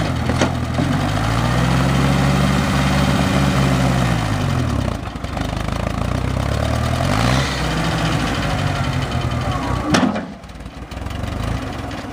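The engine of a 1959 Case Construction King backhoe running and working, its pitch rising and falling twice as it is revved and loaded. A sharp knock comes about ten seconds in, after which the engine settles quieter.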